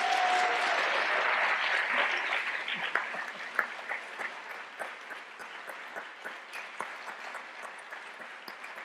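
Audience applauding: a dense, loud round of clapping that thins after about three seconds into scattered individual claps and fades.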